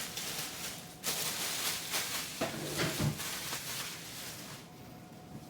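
Cardboard packaging being handled: a rustling, scraping noise for a few seconds with a couple of soft knocks, dying down near the end.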